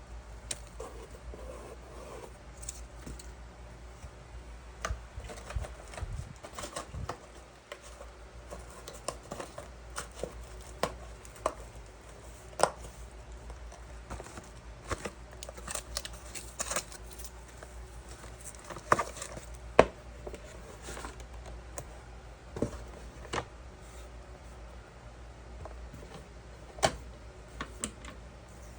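Irregular small clicks, taps and rustles of hands handling materials during assembly work, a few knocks louder than the rest, over a steady low hum.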